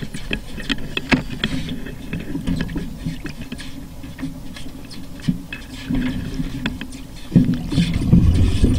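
Underwater ambience: scattered sharp clicks over a low, steady rumble, which grows louder near the end.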